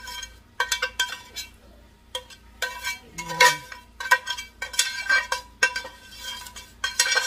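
Spoon scraping and knocking against the inside of a pot as thick ground-beef meat sauce is scraped out into a casserole dish: a run of irregular clinks and scrapes, a couple a second.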